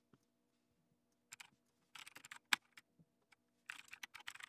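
Computer keyboard typing: faint clusters of quick keystrokes, with one louder key press about two and a half seconds in.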